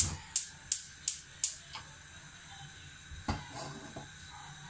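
Candy gas hob's spark igniter clicking about three times a second for a second and a half as a burner is lit, then the faint steady hiss of the gas flame. A single knock about three seconds in.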